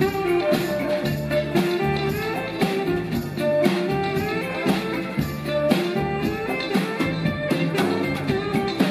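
Live band music: a drum kit keeps a steady beat under a melodic accompaniment.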